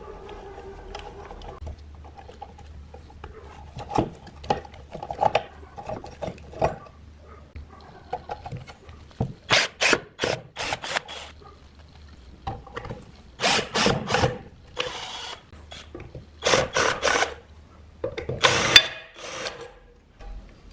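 Hand work on metal parts: scattered knocks and clinks, then several groups of short, loud scraping strokes in the second half.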